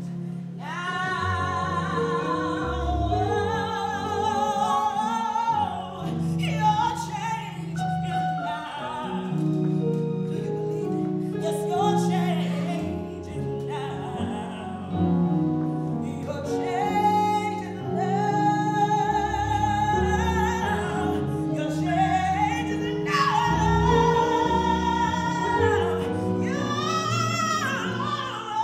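A woman singing a slow solo with long held notes and vibrato, over a sustained instrumental accompaniment of held chords.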